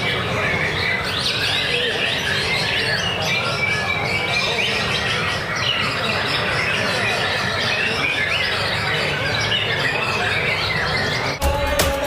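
Caged white-rumped shama (murai batu) singing a dense, unbroken stream of quick whistled notes and chirps, with other contest birds calling around it. Near the end the birdsong cuts off abruptly and music with sharp percussive hits begins.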